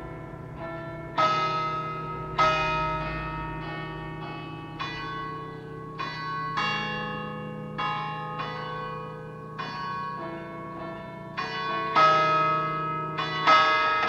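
Several church tower bells of different pitches ringing in an uneven pattern, about twenty strikes with each one ringing on over the next. The strikes come closer together near the end.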